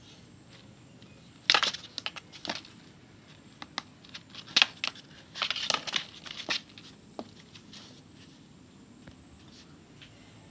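A kitten scrabbling and pouncing inside a cardboard box, its claws scratching and knocking the cardboard in quick scratchy rasps. The scratching comes in a busy run starting about one and a half seconds in and dies away after about seven seconds.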